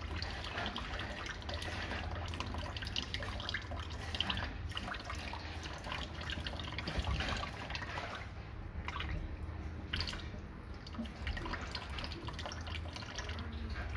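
Tap water trickling into a stainless steel kitchen sink, with small splashes and drips as a live eel is rinsed and wriggles in the water.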